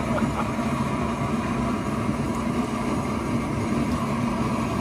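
A steady low mechanical hum that holds even throughout.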